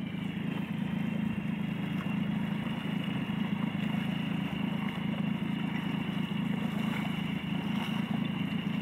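Motorboat engine running steadily under way, a constant low hum with a fainter high whine above it.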